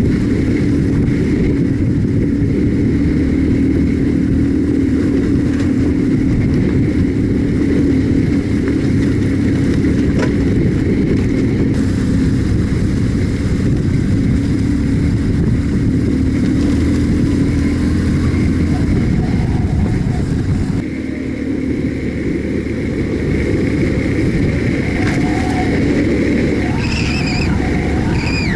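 BMW R1150GS boxer-twin motorcycle engine running steadily while riding, under heavy wind and road noise. The rumble drops a little about two-thirds of the way through. A short voice is heard near the end.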